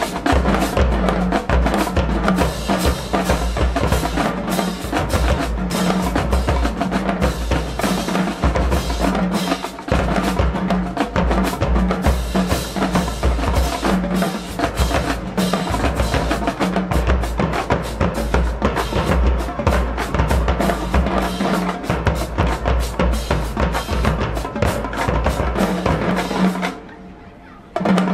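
High school marching band drumline playing a dense, fast percussion passage: snares and bass drums, with strong low bass-drum pulses. The playing stops suddenly for about a second near the end, then comes back in.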